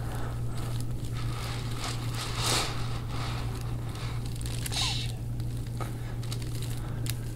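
Soft rubbing and crinkling of hands working over skin and clothing during a deep-tissue massage, with two brief louder swells of friction, over a steady low hum.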